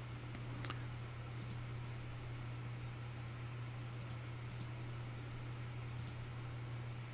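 A handful of short computer mouse clicks, about five spread over several seconds, over a steady low hum.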